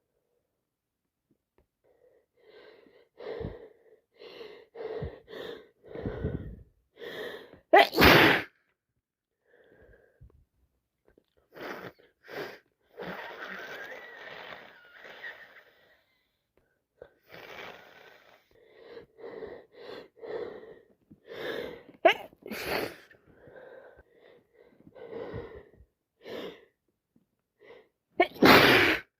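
A woman sneezing again and again from a cold turned sinusitis. A run of short gasping breaths builds to loud sneezes about 8 seconds in, twice around 22 seconds, and once more at the very end.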